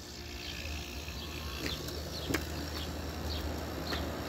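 1986 General Electric Hotpoint window air conditioner switched on and running quietly: a steady low hum that builds a little over the first seconds, with a faint tick about two seconds in.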